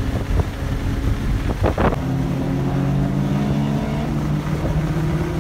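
Car engine droning at a steady cruise, with road rumble and wind buffeting the microphone inside a moving car. From about two seconds in, the engine settles into a steady hum of several even tones.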